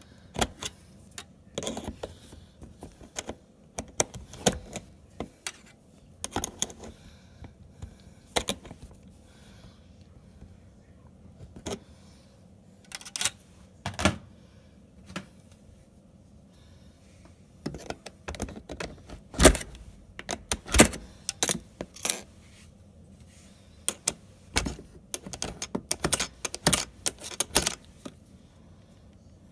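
Metal tools and parts clinking, tapping and rattling as they are handled during a dishwasher heating-element repair. The clicks and knocks come in scattered, irregular clusters, with a few louder knocks a little past the middle.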